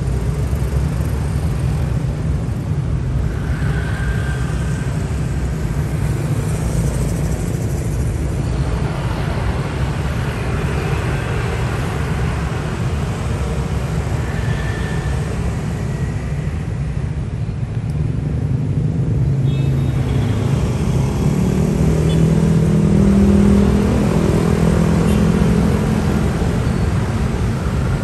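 Road traffic: motorcycles and cars passing, a steady low rumble of engines and tyres. It swells louder around two-thirds of the way through as vehicles pass close.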